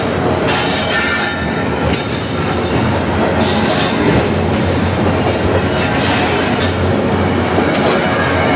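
Intermodal freight train's container cars rolling past, steel wheels squealing and clacking as they come off a switch.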